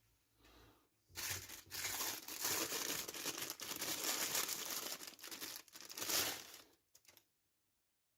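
Packaging being crinkled and rustled by hand for about six seconds, followed by a couple of short clicks near the end.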